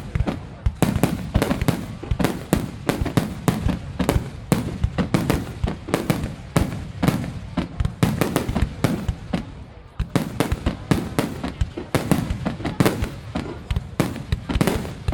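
A rapid, continuous volley of firework bangs, several a second, with a short lull about ten seconds in before the volley picks up again.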